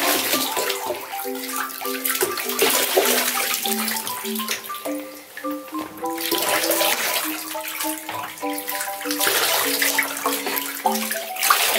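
Water poured from a plastic container splashing over a puppy into shallow bathwater, in swells every few seconds, under background music with a simple melody of short notes.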